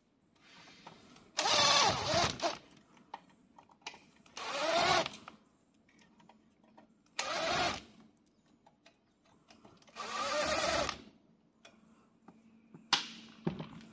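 Electric drill-driver run in four short bursts of about a second each, its motor pitch sliding as it speeds up and slows, driving out screws while a welding machine is taken apart to change its control card. A sharp click near the end.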